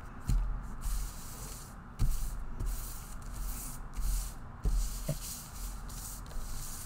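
A pile of paper slap stickers being shuffled and spread across a desk by hand: paper rustling in bursts, with several dull thumps of hands and stickers landing on the desk, picked up by a cheap webcam microphone.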